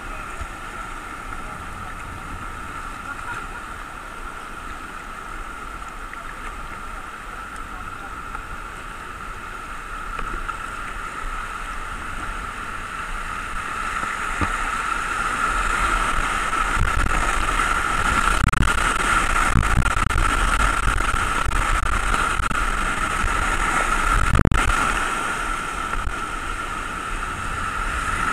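Rushing whitewater of a mountain river heard from a kayak, getting louder from about fourteen seconds in as the boat runs into a rapid. A few low thumps and one clear knock come about twenty-four seconds in.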